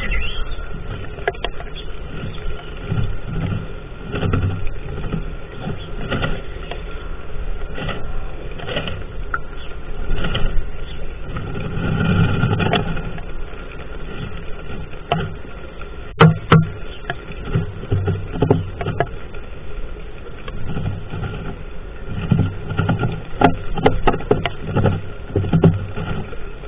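Muffled rustling and low thumps inside a wooden nest box as a Eurasian tree sparrow shifts among the straw nest material, with a few sharp clicks about two-thirds of the way through and again near the end.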